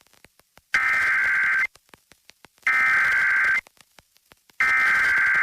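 Emergency Alert System SAME header: three bursts of buzzing digital data tones, each just under a second long and about a second apart. They carry the coded header of a flash flood warning.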